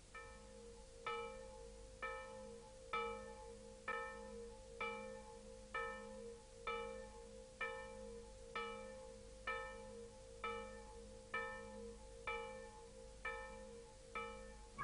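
A bell tolling at a steady pace, about one stroke a second, each stroke ringing out and fading over a low steady hum.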